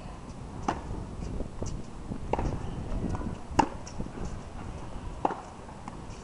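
Tennis ball struck back and forth in a rally: four sharp racket pops about one and a half seconds apart, the loudest about three and a half seconds in.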